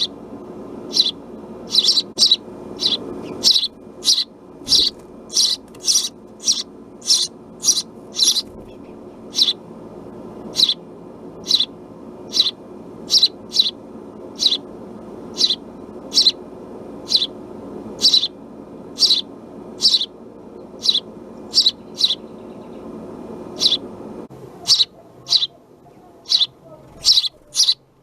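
House sparrow chirping, a short sharp call repeated about twice a second without let-up. Beneath it runs a steady hum that stops about three-quarters of the way through.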